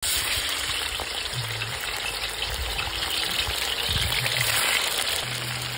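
Raw chunks of wild boar meat sizzling and spattering in hot oil in a cast-iron kazan as they are dropped in: a steady, loud frying hiss.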